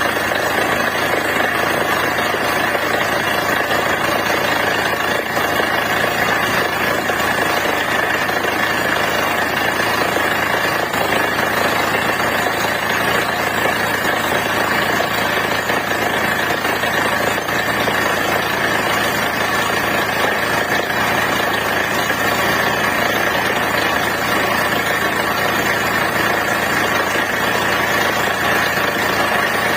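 Borewell drilling machine running steadily while drilling, a loud continuous machine noise that does not change.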